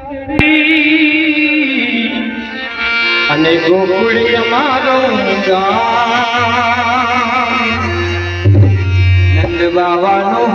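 Indian folk music at a Navratri performance: a voice singing ornamented, wavering melodic lines over instrumental accompaniment and drums, loud throughout. There is a sharp click about half a second in and a low steady tone from about six to nine seconds in.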